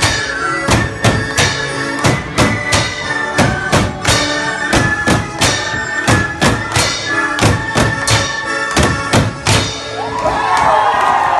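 Valais field drums and fifes playing a traditional tune: steady drum strokes under a high fife melody. About ten seconds in the music ends and the crowd breaks into cheering and whoops.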